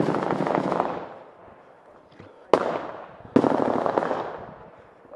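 Bursts of automatic gunfire in a firefight. A long burst of rapid shots dies out about a second in, a single loud crack comes about two and a half seconds in, and a second burst of rapid shots follows a second later.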